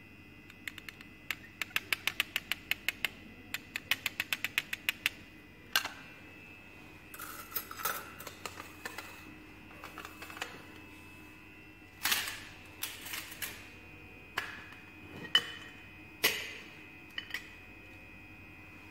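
Two quick runs of small sharp clicks, then scattered clinks and knocks of glass and metal as lab glassware and a metal canister of glass pipettes are handled.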